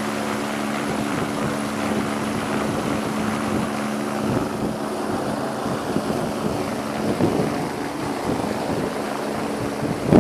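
Rescue helicopter hovering close overhead, its rotors and engine running with a steady low hum. Rotor wash is buffeting the microphone with rushing wind noise.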